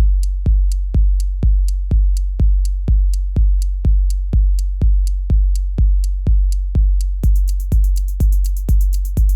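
Techno track with a steady four-on-the-floor drum-machine kick, deep and punchy, at about two beats a second. About seven seconds in, a fast run of high hi-hat-like ticks joins the kick.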